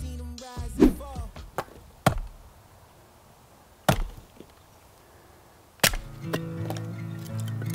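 Four axe chops into wood, about one and a half to two seconds apart, the first the loudest. Hip hop music fades out at the start, and acoustic guitar music comes in about six seconds in.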